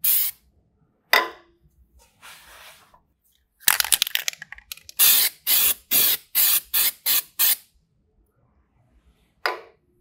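Aerosol can of dye-penetrant developer sprayed in short hissing spurts onto a cast aluminum wheel: a few spaced spurts, then a quick run of about seven in a row, then one more near the end.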